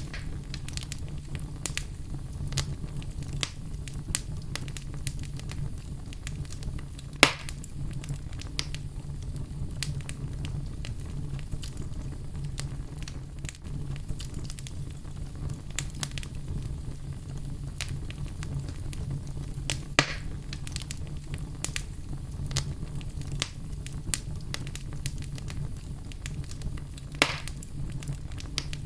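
Wood fire burning in a fireplace: a steady low rumble of flames with frequent small crackles, and three louder sharp pops spread across the stretch.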